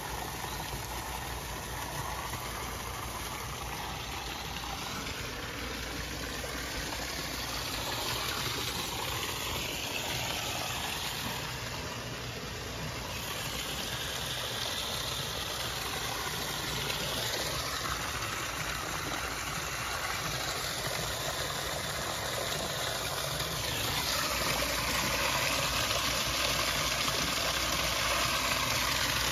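Steady rush of water from a koi pond's barrel-filter system, with a low pump hum underneath; it gets somewhat louder near the end.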